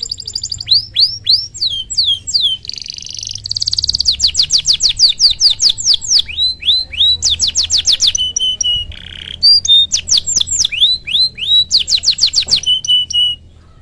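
Domestic canary singing a long, vigorous song: rapid rolls of high downward-sweeping notes, several to a dozen a second, broken by buzzy notes, with the phrase changing every second or two. The song stops suddenly near the end.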